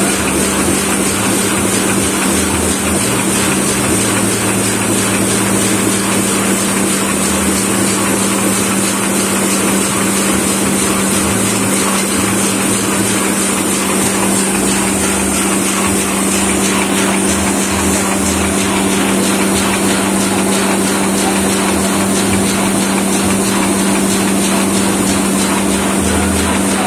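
Sheet-fed offset printing press running steadily: a constant mechanical hum with a high hiss over it.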